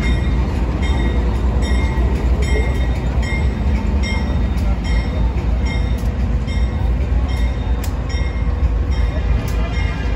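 A train of stainless-steel passenger cars rolling past at close range, giving a heavy steady low rumble of wheels on rail. A light regular tick sounds about every two-thirds of a second.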